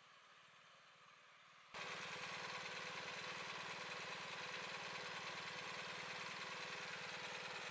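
Faint background at first, then about two seconds in an engine starts being heard idling steadily, with a fast, even throb and a steady hum.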